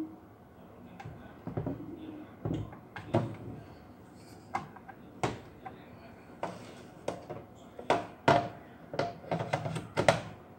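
Plastic clacks and knocks from Total 20 V cordless battery packs, a charger and a circular saw being handled on a tabletop. There are a dozen or so sharp knocks at irregular spacing, the loudest about 8 and 10 seconds in.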